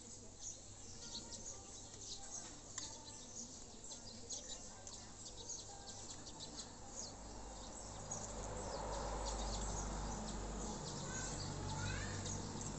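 Small birds chirping in short, quick notes, with a couple of sliding chirps near the end, over a steady low hum. The background noise grows louder about eight seconds in.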